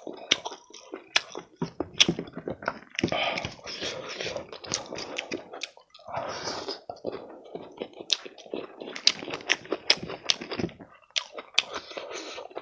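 Close-miked eating: a person chewing food with many sharp wet mouth clicks and smacks, and two longer, noisier stretches of chewing about three and six seconds in.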